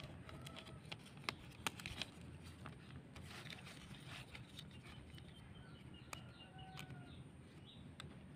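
Light clicks and rustles of scissors snipping a thin plastic bag and of the cut plastic being handled, with a few faint bird chirps in the background.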